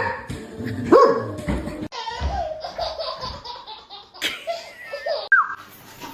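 A person laughing, with a dog's voice mixed in; the sound changes abruptly a couple of times.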